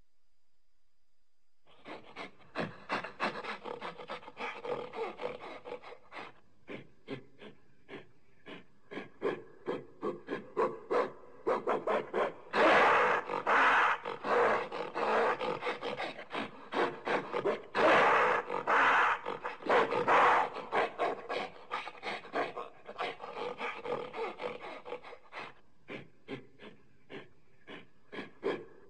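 Primate calls: a rapid run of short grunting pulses that starts about two seconds in and swells twice into loud, dense outbursts near the middle before tailing off into scattered pulses.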